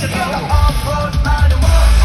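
Loud live pop-rock music over a concert sound system, with a melodic voice line, and heavy bass and drums coming in about half a second in.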